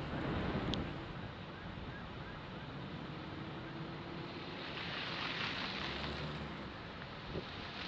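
Wind rushing over the microphone, a steady hiss that swells for a couple of seconds about five seconds in.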